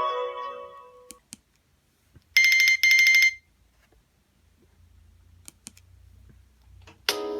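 Nokia Asha 302 ringtones: a melodic tone fades out over the first second, then a short buzzy electronic alert tone sounds in two pulses for about a second. Near the end the next ringtone's melody begins.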